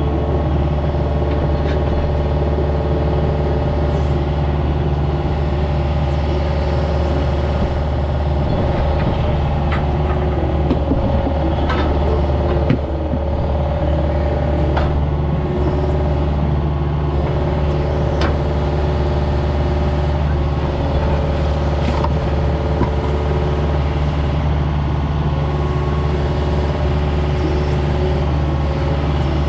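Diesel engine running steadily at a constant speed, with a few sharp metal clanks over it.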